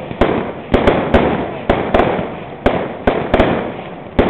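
Fireworks display going off: a rapid, irregular series of sharp bangs, about ten in four seconds, with a steady hiss between them.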